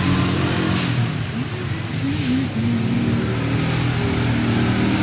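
A motor vehicle's engine running, a steady pitched hum whose pitch wavers up and down.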